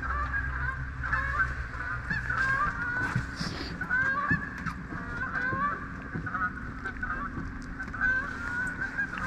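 A flock of birds calling continually, many short calls overlapping one another, over a steady low hum.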